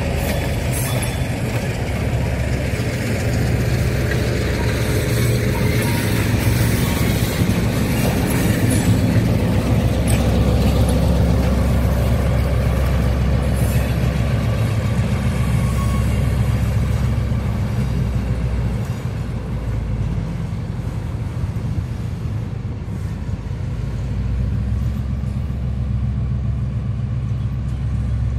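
Diesel switcher locomotive running as it pulls a string of covered hopper cars past, a steady low engine drone over rolling wheel noise. It is loudest about ten seconds in as the locomotive goes by, then eases off as it moves away.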